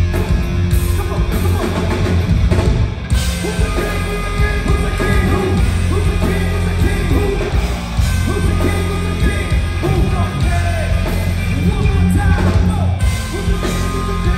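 Live rap-rock band playing loud: drum kit, bass and electric guitars, with saxophone and a shouted lead vocal, the sound full from about three seconds in.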